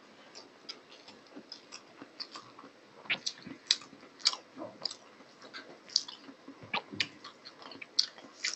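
Close-miked chewing of a mouthful of rice and banana-flower curry, with irregular wet mouth smacks, several a second.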